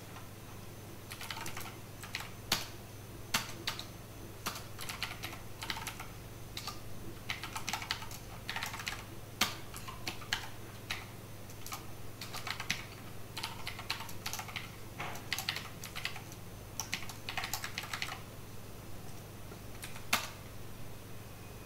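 Typing on a computer keyboard: quick runs of key clicks in irregular bursts with short pauses, ending with a single louder key press near the end.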